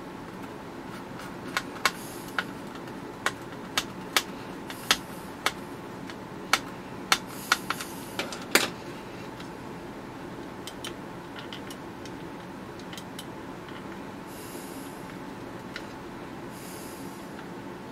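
Precision screwdriver driving a long screw into a small plastic radio case: a string of sharp clicks, about one or two a second, that stops after several seconds.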